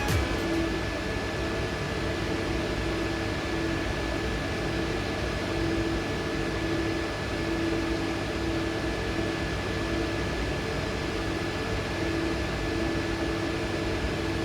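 Steady mechanical hum and hiss with a thin high whine and a lower tone that swells and fades every second or two.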